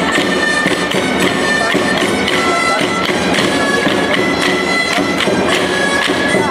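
Traditional dance music played on a loud, reedy wind instrument: a melody of held notes that step from pitch to pitch, with regular sharp percussive strikes beneath it.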